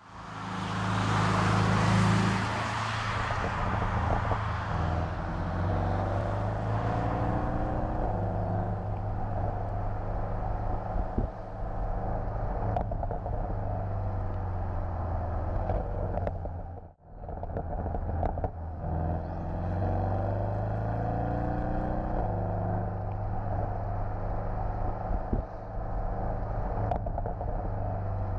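Porsche 718 Boxster GTS engine and exhaust under way. The engine note rises and falls as the car accelerates and shifts, with a brief break a little past halfway.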